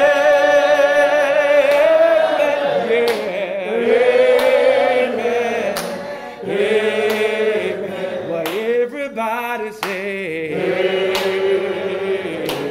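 Group of men singing gospel together without instruments, in drawn-out phrases of held, wavering notes a few seconds long.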